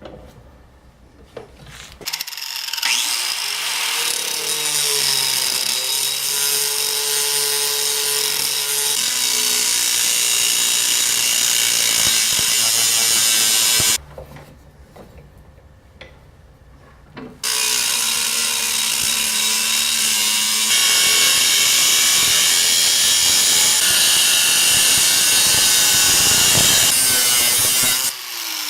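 An electric power tool spins up and cuts through a piece of pipe clamped in a vise, running steadily under load. It stops for about three seconds midway, cuts again, and winds down with a falling pitch at the end.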